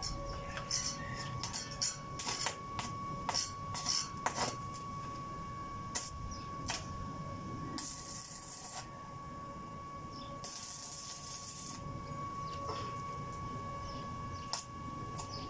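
Electric arc welding on a steel gate frame: the arc is struck again and again with short sharp crackles, and twice burns for about a second with a steady sizzling hiss, about eight and eleven seconds in. A thin steady high tone runs underneath.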